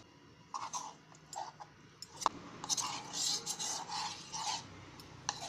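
A spoon clinking and scraping in a bowl, with a stretch of stirring near the middle, as cornflour is mixed with water into a slurry. Scattered sharp clicks come throughout.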